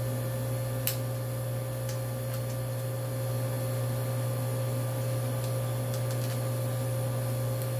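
Chest freezer running with a steady low hum. One light click about a second in.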